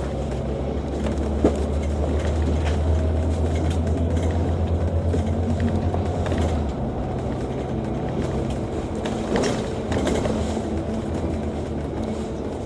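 Diesel engine of a Volvo B9TL double-decker bus heard from inside the cabin: a steady low drone that shifts to a different note a little past halfway, with a few sharp rattles and clicks from the bodywork.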